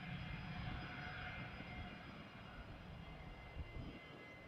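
Fokker 70 jet's two rear-mounted Rolls-Royce Tay turbofans running at low power as the aircraft taxis on the runway after landing: a steady jet whine with faint whistling tones over a low rumble, easing slightly.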